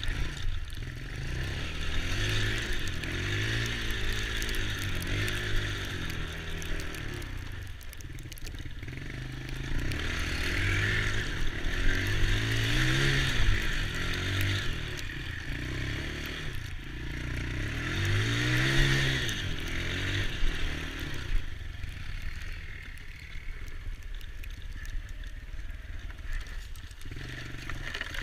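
Small ATV engine running and revving up and easing off again several times, with the biggest surges about 4, 12 and 18 seconds in.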